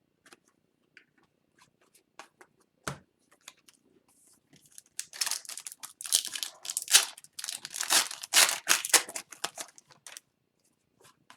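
A foil trading-card pack wrapper is torn open and crinkled, a loud run of tearing and crinkling from about five seconds in to about ten. Before that come faint scattered ticks of card handling.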